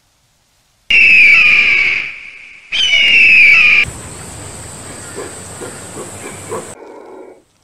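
An eagle screaming twice: two loud, high-pitched screeches about a second long each, the pitch falling at the start of each. They are followed by a few seconds of quieter hissing background noise.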